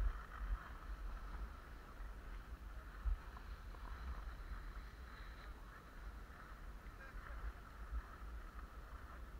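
Skis scraping and sliding over packed snow in a steady hiss, with low wind rumble on the microphone and a soft knock about three seconds in.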